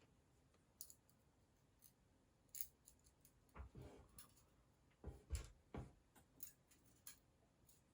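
Faint, scattered light clicks and a few soft knocks of small metal construction-set parts, pieces, screws and nuts, being handled and fitted together.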